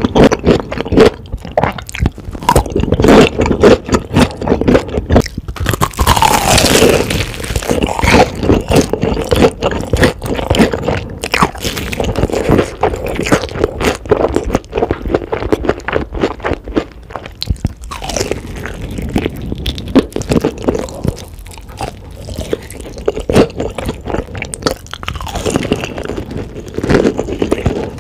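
Close-miked biting and chewing of crispy battered fried chicken: dense, sharp crunching and crackling of the fried crust, with the loudest crunch about six seconds in.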